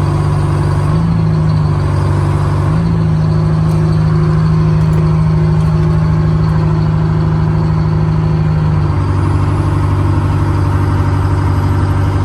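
Diesel engine of a 1971 Insley excavator running steadily while the machine is being worked. Its note lifts briefly a couple of times near the start and settles lower about nine seconds in.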